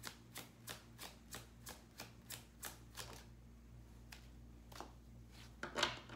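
Tarot deck being hand-shuffled overhand, the cards slapping together about three times a second, slowing after about three seconds. A louder brief flurry of card sounds comes near the end.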